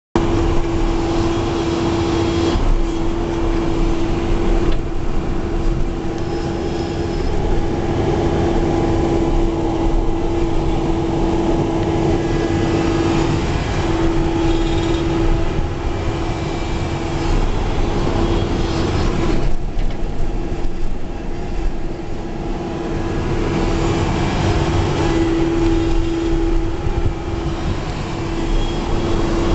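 Backhoe's diesel engine running steadily under operation, a constant low rumble with a steady hum riding on it.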